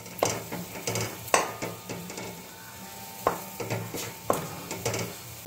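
A metal spatula stirring and scraping against a metal kadai, with sharp scrapes and knocks about once a second. Under it is a low sizzle of the hot jaggery syrup.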